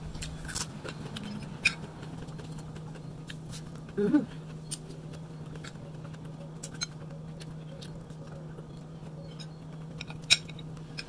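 Mouth sounds of chewing crisp cucumber, with scattered sharp clicks and scrapes of a metal spoon and fork on a plate over a steady low hum. A brief voiced 'mm' about four seconds in.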